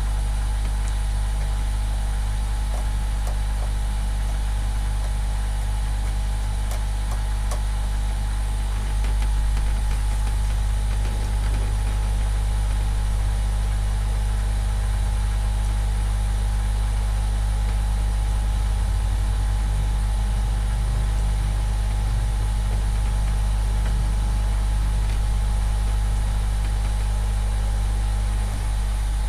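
Hot air rework station blower running steadily at maximum airflow while heating a circuit board for desoldering: a constant low drone with a steady hum.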